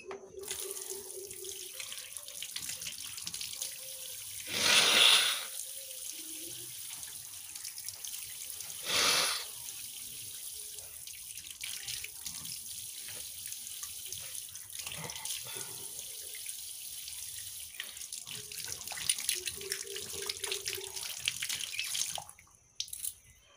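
Water running steadily from a tap, turned on at the start and shut off sharply near the end, with two louder noisy rushes of about a second each, around 5 and 9 seconds in.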